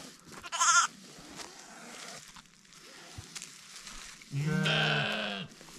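Ewe bleating over her newborn lamb: one long, low, slightly wavering bleat about four and a half seconds in, after a brief high-pitched call near the start.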